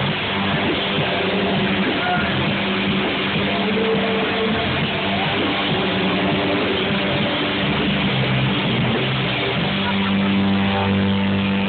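Live hard rock band playing loud and without a break: electric guitar and bass guitar in a full band sound.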